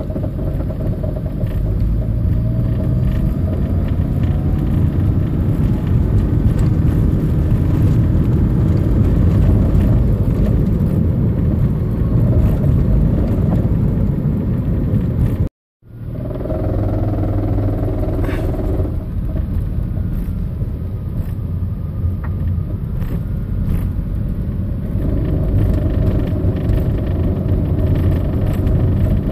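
A 2010 Toyota Prius driving at low speed, its 1.8-litre four-cylinder hybrid engine and the road giving a steady rumble, with faint scattered ticks. The sound cuts out completely for a moment about halfway through.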